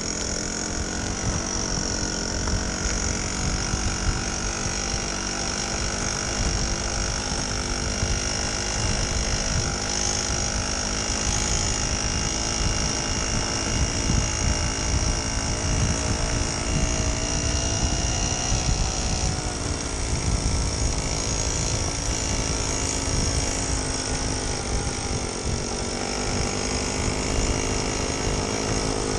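1969 Solex 3800's 49.9 cc two-stroke engine running steadily under way, a high-pitched buzzing drone whose pitch drifts a little. A low rumble from the rough dirt track and air moving past runs beneath it.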